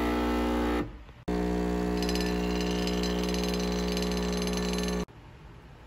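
Smeg espresso machine's pump buzzing steadily as it pulls a shot. It drops out briefly about a second in, resumes, and cuts off abruptly near the end.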